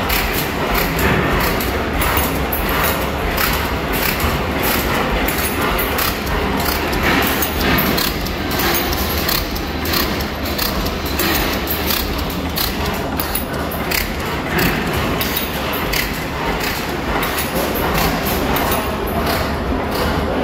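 Several antique stationary gas engines running at once, a dense, steady clatter of knocks and thumps. Nearest is a circa-1899 Lambert four-cycle 10 hp gas engine, its flywheels turning.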